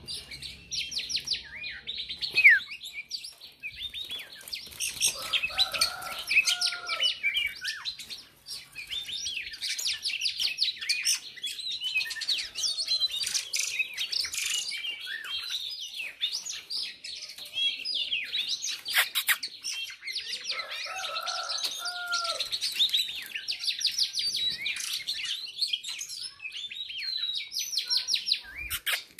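Dense, rapid chirping and twittering of a female songbird's call, the kind used to rouse males to sing and fight. A lower phrase comes in twice, about fifteen seconds apart.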